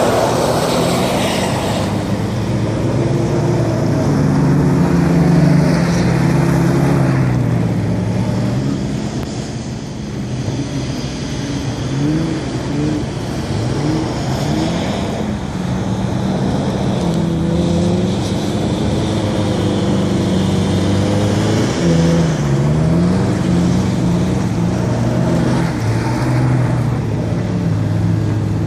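Pickup truck engine revving hard while the truck drifts, its pitch rising and falling again and again in quick bursts of throttle.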